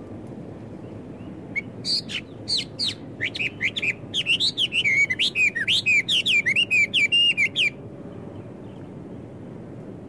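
A blackbird singing a fast run of varied, slurred whistled notes, starting about a second and a half in and breaking off suddenly after about six seconds, over a steady low background rumble.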